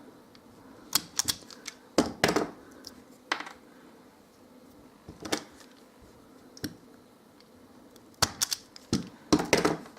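Automatic wire stripper snapping and clicking as its handles are squeezed and released, stripping insulation from a thin flexible cord. The sharp clicks come in clusters every second or two, with a denser burst near the end.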